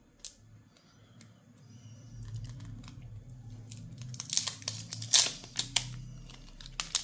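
Thin plastic protective wrap crinkling and crackling as it is peeled off a new smartphone by its pull tab, with a cluster of louder sharp crackles about four to five seconds in.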